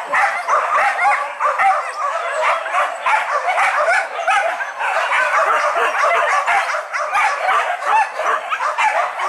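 A pack of hunting dogs on a wild boar hunt yelping and barking together, many overlapping voices in a dense, continuous chorus.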